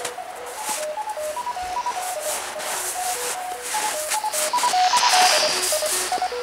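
Fox-hunt beacon's signal received on a radio: a quick run of short beeps jumping between several pitches like a simple tune, over steady radio hiss. A louder rush of noise comes about five seconds in.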